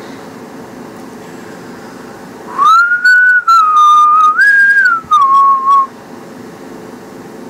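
Someone whistling a short phrase of a few held notes for about three seconds, starting a little before the middle: a glide up into the first note, a slightly lower note, a higher one, then a lower one to finish. A steady low hum runs underneath.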